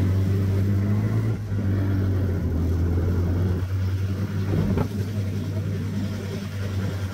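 Engine of a motorcycle cargo tricycle (triporteur) running steadily under way, a low even drone whose pitch dips slightly about a second and a half in. Wind and road noise come with it.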